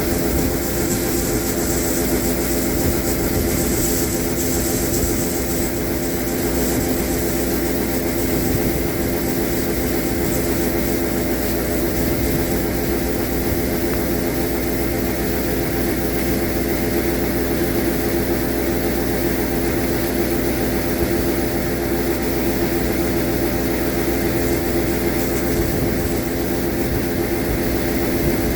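Combine harvester running at a steady working speed: a constant, even engine and machinery drone with a steady hum and hiss.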